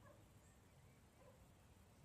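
Near silence: faint forest ambience with a low background rumble and a few faint, short bird calls.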